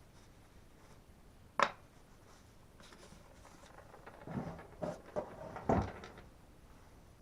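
Chainsaw parts and tools being handled on a workbench: one sharp click about one and a half seconds in, then a short run of knocks and clatter a few seconds later.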